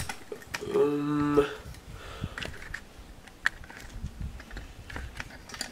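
Small scattered clicks and taps of fingers working the spring-loaded thumbscrew on a PC case's side panel, with a short hummed "mm" from the person about a second in.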